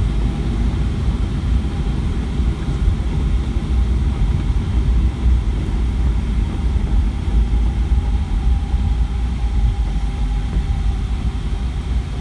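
Steady low rumble inside the cabin of a Boeing 757-200 rolling along the runway after landing: the engines running and the wheels on the pavement, with a few faint steady engine tones above the rumble.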